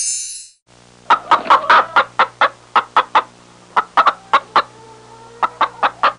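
Recorded hen clucking: a string of short, sharp clucks at two to three a second, with a brief pause and a longer drawn-out note near the middle. A high sweeping electronic sound fades out in the first half second.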